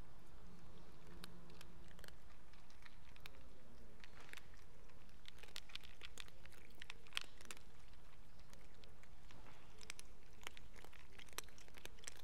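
Several cats eating together from one bowl: irregular crunching and clicking of chewing, busier in the second half.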